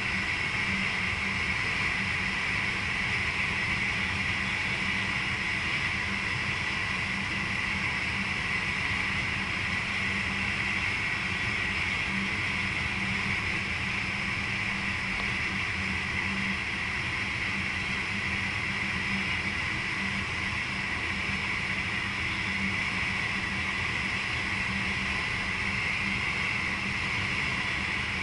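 Steady running noise inside the driver's cab of a VIRM double-deck electric train travelling along the line: an even hiss and rumble with a low steady hum underneath.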